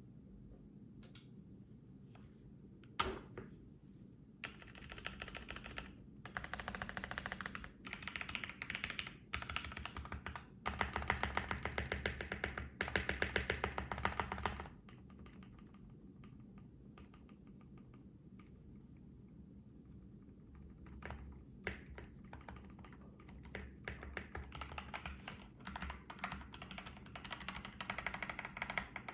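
Modded BM65 mechanical keyboard being typed on: lubed, filmed Gateron Black Ink V2 linear switches under PBT keycaps in a foam-damped case. A few single key presses with one sharp one about three seconds in, then about ten seconds of fast continuous typing, a pause of several seconds, and typing again toward the end.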